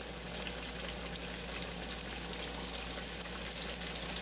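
Cornmeal-breaded catfish nuggets freshly dropped into oil at 350°F, deep-frying with a steady sizzle and crackle of bubbling oil.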